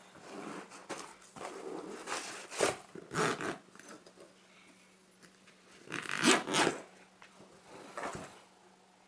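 Zipper on a fabric IKEA Poäng seat cushion cover being pulled closed in a few short rasps, the loudest about six seconds in, with rustling as the cover and foam cushion are handled.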